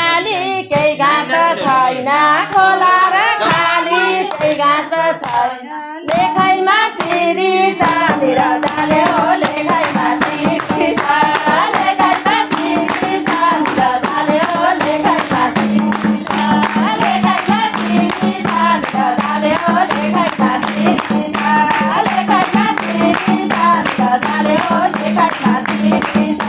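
Group of mostly women's voices singing a Nepali Teej folk song together, with rhythmic hand-clapping and a madal hand drum. The clapping and drumming fill in and grow steadier about eight seconds in.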